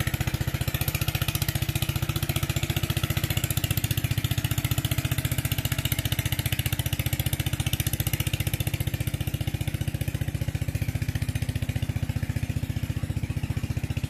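A small engine running steadily with a fast, even pulsing beat and no change in speed.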